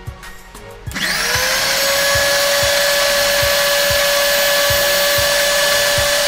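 Electric mixer-grinder (mixie) motor starting about a second in, its whine rising quickly to a steady pitch and then running steadily under load as it grinds soaked melon seeds with a little added water into a paste.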